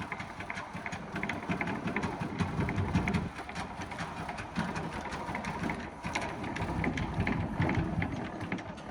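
Hand crank lowering the height-adjustable wood top of a Husky 72-inch tool box: a continuous run of rapid mechanical clicking and rattling from the lift mechanism.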